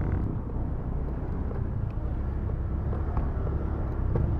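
Motorcycle engine running steadily as a low rumble, with road and wind noise.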